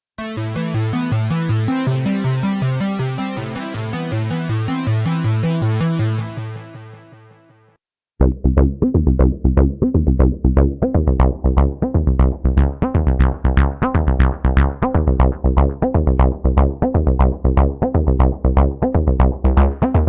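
Tone2 Saurus 3 software synthesizer playing sequenced presets. A bright, dense pattern of sustained notes fades out about eight seconds in. After a brief gap a fast, bass-heavy 303-style acid sequence of short repeated notes starts.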